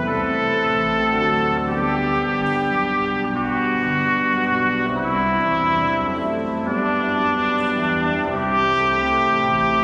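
Trumpet playing a slow solo line of long held notes, over pipe organ accompaniment holding low sustained chords.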